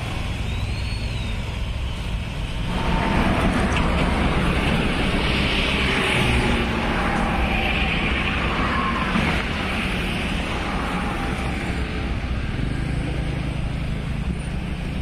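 Road traffic with motorcycles passing over a level crossing. The sound grows louder about three seconds in and eases off again about nine seconds in.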